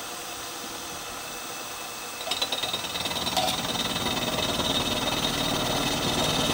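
Milling machine spindle running with a large end mill, which begins cutting into the welded steel plate of the enclosure base about two seconds in. The cutting noise then grows steadily louder as the light flattening pass goes on.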